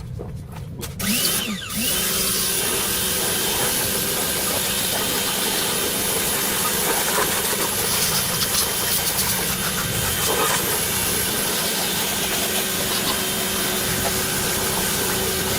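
A motor starts up about a second in, its pitch rising briefly, then runs at a steady speed.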